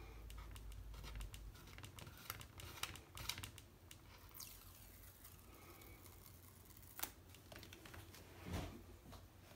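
Faint scratching and rubbing of hands and pastel on textured watercolour paper, with scattered light ticks and scrapes and one falling swish about halfway through.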